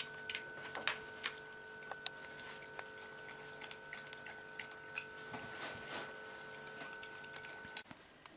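A dog eating from a stainless steel bowl: scattered sharp clicks and crunches of chewing and of the bowl. A steady high-pitched hum runs underneath and stops near the end.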